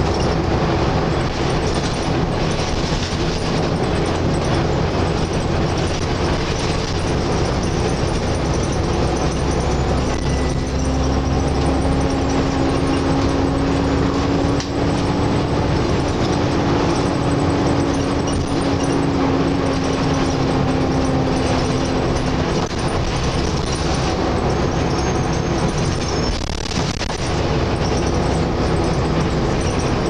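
Volvo B7TL double-decker bus on the move, heard from the upper deck: its six-cylinder diesel and the road noise running steadily and loud, with the droning 'hoover' sound of this bus. A steady tone swells in about ten seconds in, rises and falls gently, and fades out near the twenty-second mark.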